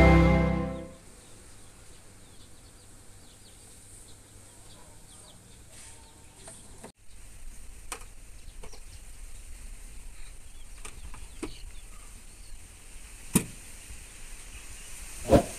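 Intro music fades out in the first second, leaving a quiet background with faint chirps. Then a cloth cover is pulled off a sewing machine on a wooden base, with light clicks and two sharper knocks near the end as the machine is handled.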